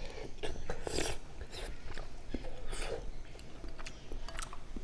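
A man slurping and eating hot rice porridge from a metal spoon: a few noisy sips about half a second, one second and three seconds in, mouth smacks, and light clicks of the spoon against the bowl near the end.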